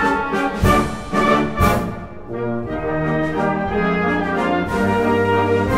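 Orchestral background music with brass, playing sustained chords that change every second or so, with two short hits in the first two seconds.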